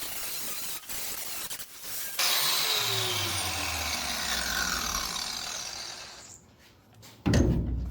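Grinder working the steel of a truck bed, then released and spinning down: a whine that falls steadily in pitch and fades over about four seconds. A loud thump comes near the end.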